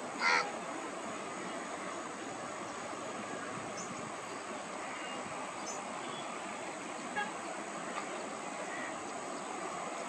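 Steady outdoor background hiss of a wetland, with one short harsh bird call about a third of a second in and a few faint high chirps and ticks later.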